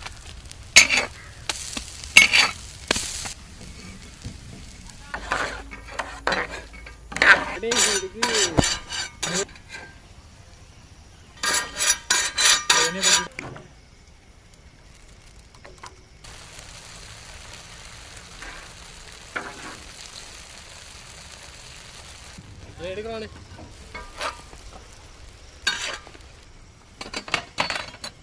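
Egg omelettes frying in a large pan with a steady sizzle. A metal spatula scrapes and clinks against the pan in several clusters of sharp strikes.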